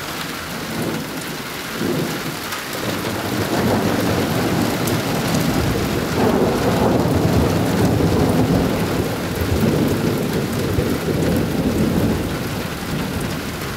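Long rolling thunder over steady rain: the rumble builds about two seconds in, is loudest in the middle, and eases off near the end, like a landslide in the mountains.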